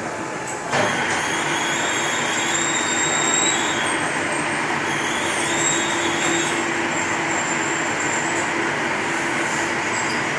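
Heavy machinery starts up about a second in and then runs steadily: a loud, even mechanical noise with a constant low hum and high whining tones.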